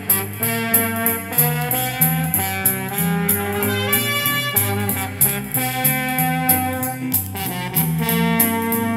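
Music from an LP playing on a Micro Seiki MB-10 vintage turntable: a band with a steady beat, regular cymbal strokes and a moving bass line.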